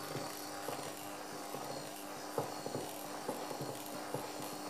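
Bosch 300 W electric hand mixer running steadily, its beaters working flour into soft cookie dough, with scattered light knocks as the beaters strike the bowl and dough.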